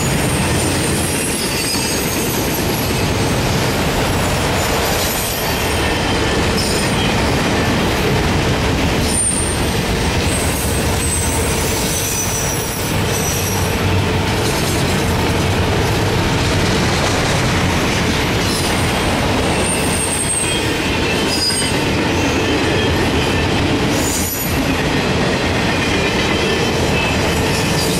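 Autorack freight cars rolling past: a steady rumble of steel wheels on rail, with brief high-pitched wheel squeals coming and going throughout.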